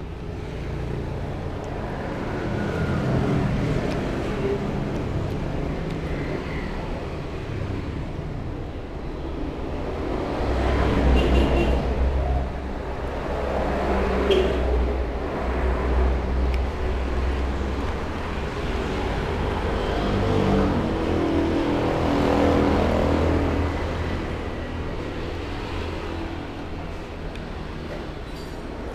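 Road traffic passing the open-fronted eatery: vehicle engines rumbling, swelling and fading, loudest about 11 seconds in and again a little after 20 seconds.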